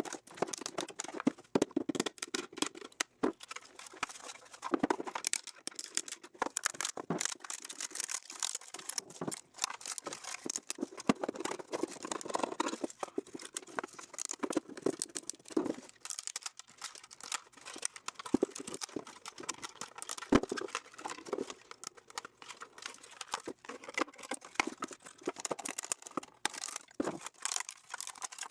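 Black plastic parts and small hand tools being handled on a workbench: an irregular run of clicks, taps and scraping.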